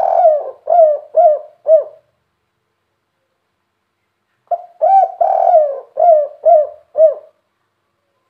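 Spotted dove singing its cooing 'kuk 3' song. One phrase ends about two seconds in. After a pause, a full second phrase follows: a short note, a long drawn coo, then three short clipped coos.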